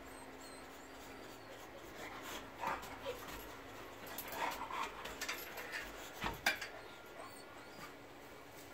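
A dog whimpering in short bursts through the middle of the stretch, with two sharp clicks close together a little after six seconds in.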